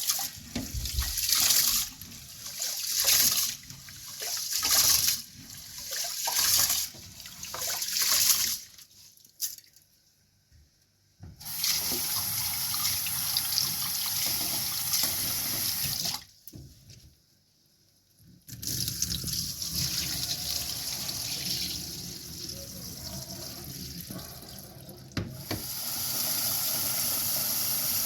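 Water running from a tap into a sink. For the first several seconds it splashes in surges about every second and a half, then after a short break it runs as a steady stream, stopping briefly once partway through.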